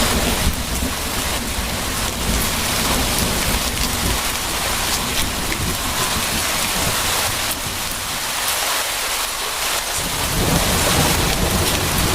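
Steady rain hissing, with a low rumble of thunder underneath. The rumble dies away in the middle and builds again about ten seconds in.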